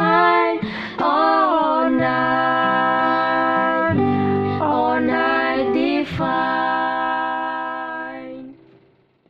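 A male and a female voice singing a slow duet over acoustic guitar, closing on long held notes that die away near the end.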